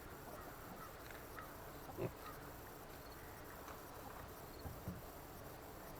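Piglets giving a few soft, short grunts while rooting in the dirt: one about two seconds in and two close together near the end.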